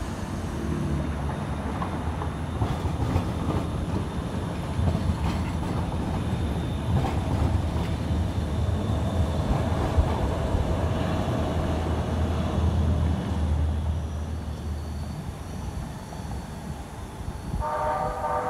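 METRORail light-rail train running past with a steady low rumble and scattered clicks from the wheels on the rails, the rumble easing off near the end. Just before the end a horn starts to sound.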